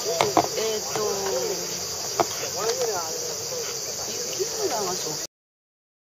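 Steady high chirring of insects, with a crowd's chatter behind it and a sharp click about two seconds in. All sound cuts off suddenly about five seconds in.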